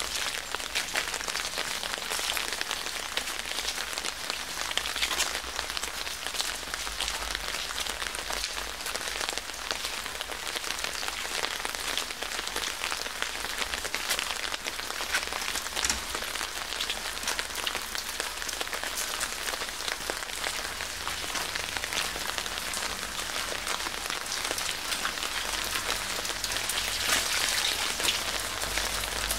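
Steady rain falling, with many sharp individual drop hits over an even hiss.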